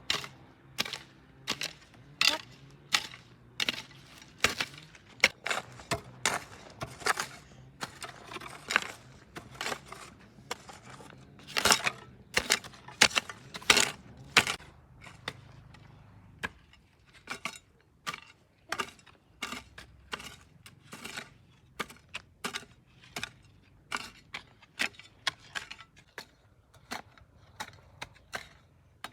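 Hoe chopping into garden soil to clear weeds, in a steady run of sharp strokes at about one and a half a second, loudest around the middle.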